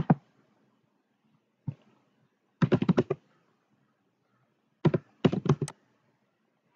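Computer keyboard typing: a single keystroke, then short quick runs of keystrokes separated by pauses.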